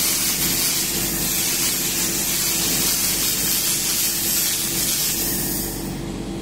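1500 W handheld fiber laser cleaner ablating rust and oxide off a stainless steel panel: a steady high hiss over a low machine hum, easing off slightly near the end.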